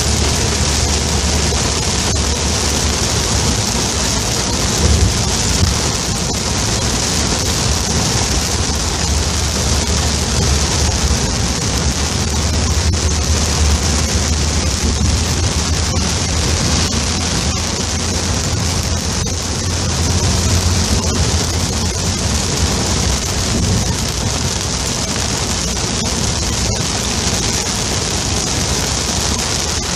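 Heavy rain beating on a car's roof and windscreen, heard from inside the moving car as a loud, steady hiss, with a low rumble of road and engine noise underneath.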